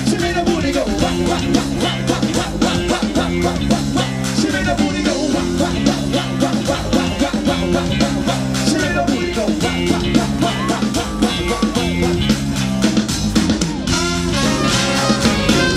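Live brass-funk band music: a steady repeating bass line and drums with electric guitar, and a vocalist singing into a microphone. A trumpet comes in near the end.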